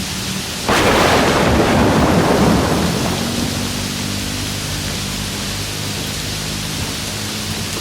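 Steady rain with a sudden thunderclap a little under a second in, loud for about two seconds and then rumbling away over the next second.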